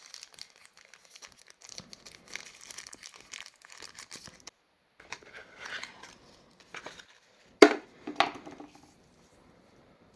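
Packaging being unwrapped: crinkling and tearing of plastic wrap and paper, then two sharp knocks close together about three-quarters of the way through.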